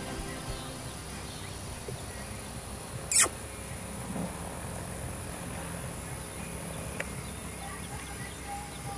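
Outdoor ambience with a steady high-pitched insect drone, broken once about three seconds in by a brief sharp noise.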